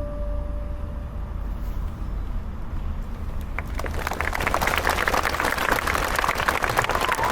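The song's last held notes fade out over the low hum of the hall, then audience applause breaks out about halfway through and grows.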